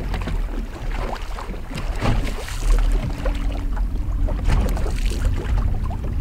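Wind rumbling on the microphone while small waves slap and lap irregularly against the hull of a fishing boat.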